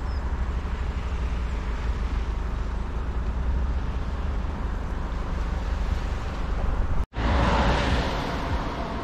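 Steady road noise from a moving vehicle, a low rumble under an even hiss. About seven seconds in it cuts out abruptly and switches to a louder, brighter stretch of road and traffic noise with a faint steady hum.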